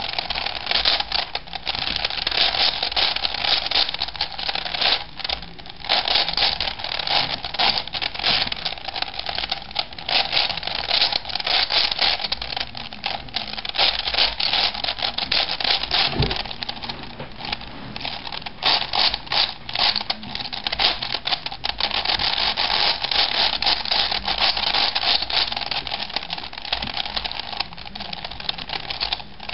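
V-cube 7 (7x7x7 twisty puzzle) being turned rapidly by hand: a dense, unbroken clatter of plastic layers clicking and rattling as the reduced cube is solved like a 3x3.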